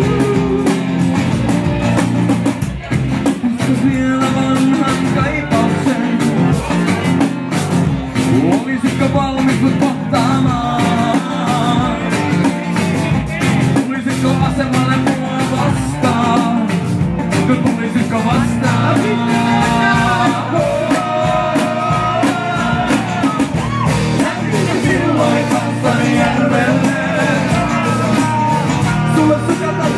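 Live acoustic band music: strummed acoustic guitars with voices singing the melody.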